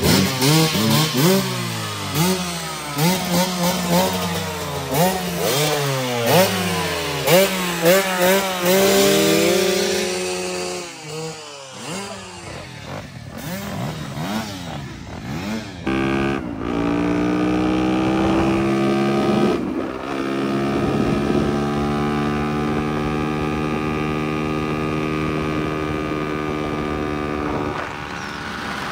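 Several dirt bike engines revving, their pitch rising and falling over and over in overlapping sweeps for the first ten seconds or so. After a brief lull, one engine settles into a steady even drone.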